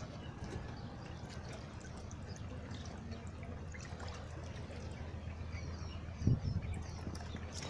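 Seawater lapping and trickling, with a low thump about six seconds in.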